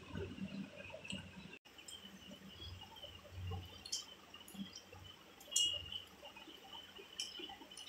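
Quiet eating by hand from a steel plate: soft sounds of fingers working rice, with a few light clicks against the metal, the loudest a little past halfway.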